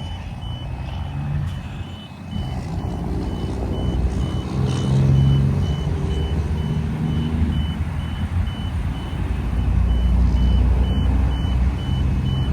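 A big truck's engine running, with its reversing alarm beeping steadily about twice a second. The beeping pauses for a few seconds midway while the engine rumble swells.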